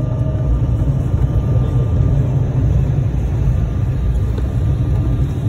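Steady low rumble of a jet airliner's cabin, its engines running, heard from a window seat. A faint thin whine above it dies away within the first two seconds.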